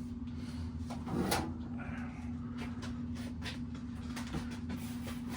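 Clicks and knocks of a storage cabinet being searched, one sharper knock a little over a second in, over a steady low hum.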